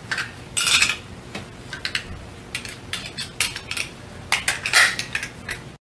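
Metal seat belt buckles on a stair chair's shoulder-and-lap harness being fastened by hand: a string of irregular clicks and clinks.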